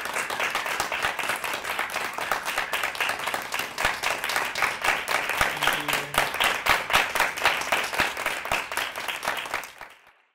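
Small audience applauding with many overlapping hand claps, fading out near the end.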